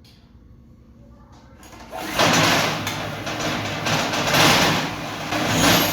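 A portable generator's small gasoline engine starts about two seconds in and keeps running loudly, its level rising and falling as it settles: the first start after its carburetor was cleaned and its fuel system redone.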